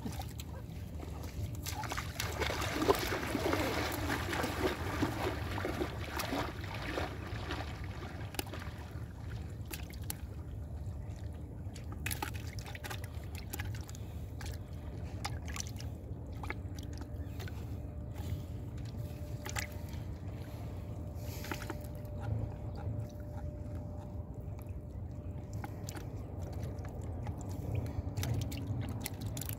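Shallow seawater sloshing and lapping at a sandy shore over a steady low rumble. It is louder and busier for a few seconds near the start, with scattered small clicks throughout.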